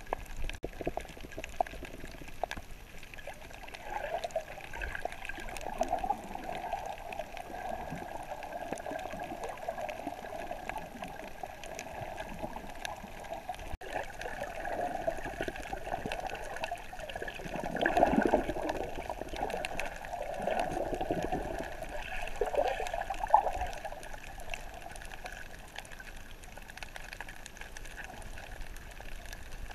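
Muffled underwater water noise from a swimming snorkeler: water sloshing and gurgling around the submerged camera, swelling and fading irregularly, loudest about two-thirds of the way through.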